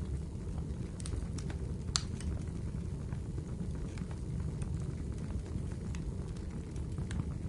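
Wood fire burning in a fireplace: a steady low rumble of flames with scattered crackles and pops, the sharpest pop about two seconds in.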